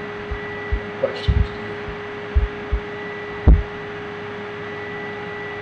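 A steady hum made of two held tones over hiss, with soft low thumps at irregular intervals, the loudest about three and a half seconds in.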